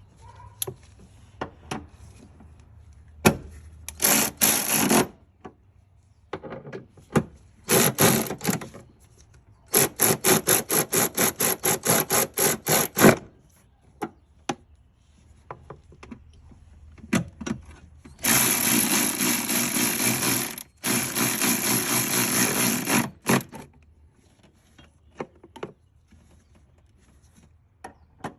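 A tool working fasteners on the engine's air filter box. There are short bursts, then a run of rapid ticking at about six a second, and a longer steady run of about five seconds near the end that breaks off briefly midway.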